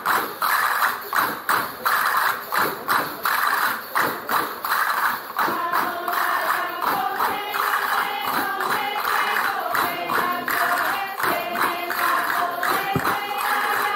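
Voices singing a folk song, with tambourines keeping a steady beat.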